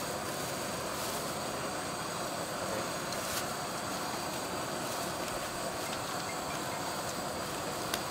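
A steady hiss over a low rumble of background noise, with a few faint crinkles and clicks as a thin plastic carrier bag is handled around a takeaway bowl.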